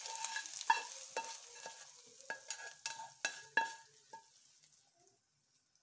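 Hot tadka of oil, fried onions and spices sizzling as it is poured from a pan onto haleem, with a spatula knocking and scraping the pan about six times, each knock ringing. The sizzle dies away about four seconds in.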